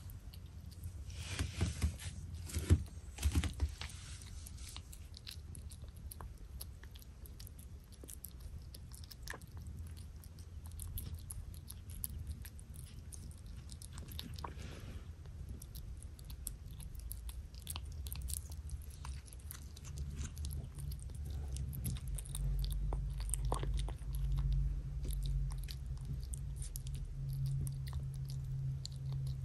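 Kitten eating soft wet cat food from a bowl: quick, wet chewing and smacking clicks throughout, with a few louder knocks in the first few seconds. A low hum comes up in the second half.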